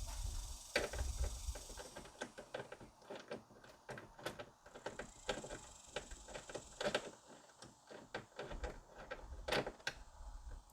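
Wrench on a 14 mm bolt: irregular ratchet-like clicks and metal taps, with louder knocks about a second in, in the middle and near the end.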